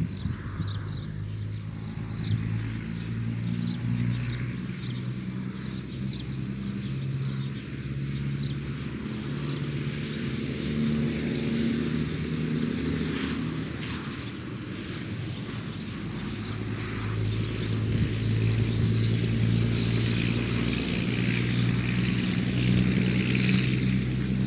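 An engine running steadily, its pitch shifting a little and growing louder about two-thirds of the way through.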